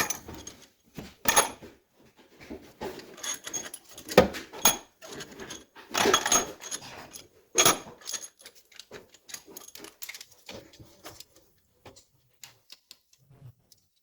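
Metal tools and engine parts clinking and knocking, irregular and sharp with a light metallic ring, thinning out near the end.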